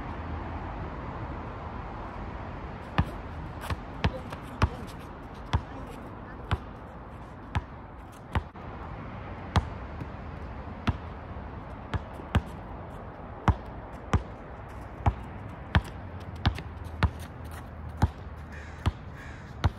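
A basketball dribbled on an asphalt court: sharp bounces starting about three seconds in, unevenly spaced at roughly one a second, over a steady low background hiss.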